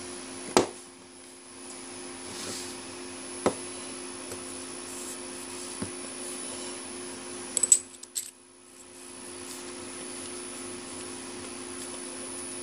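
Aluminium arbor parts being handled and set down on a workbench: a few sharp metallic knocks and clicks, the loudest about half a second in and a quick cluster near eight seconds, over a steady background hum.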